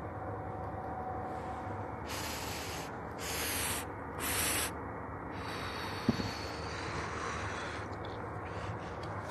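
A person smoking, with two short breathy puffs of exhaled smoke close to the phone's microphone about three and four and a half seconds in, and a single click about six seconds in, over a steady background hiss.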